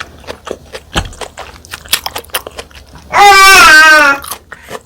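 Close-miked eating sounds: wet mouth clicks and chewing. About three seconds in, a squeaky toy gives one loud squeak lasting about a second, its pitch wavering and sliding slightly down.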